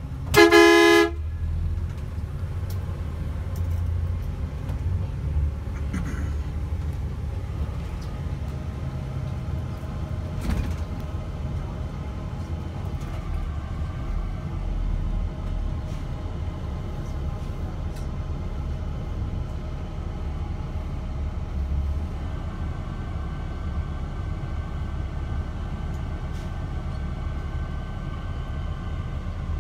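A vehicle horn sounds once near the start, a short loud blast under a second long. It is followed by the steady low rumble of a coach bus's engine and tyres heard from inside while driving.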